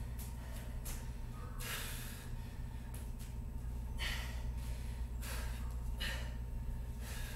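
A person breathing hard under exertion during a dumbbell exercise: several sharp, forceful breaths a second or so apart, over a steady low hum.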